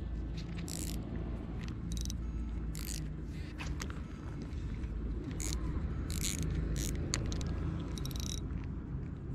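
Spinning reel being cranked to bring in a hooked fish, its gears whirring steadily, with short scratchy clicks and rasps every second or so.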